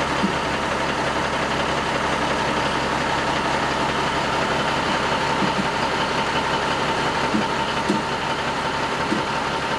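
Semi-truck tractor's diesel engine idling steadily.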